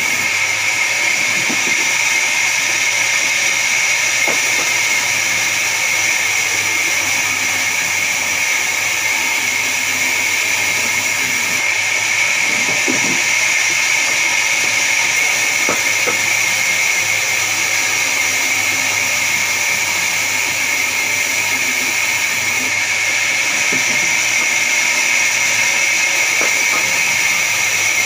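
Large vertical band saw mill running, its blade cutting through a big log as it is pushed along the table: a steady, high-pitched whine, with a few faint knocks of the wood on the table.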